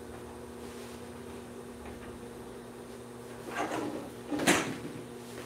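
Low steady hum under quiet room noise, then near the end a brief rustle and a single sharp knock, such as a drawer or cupboard being shut.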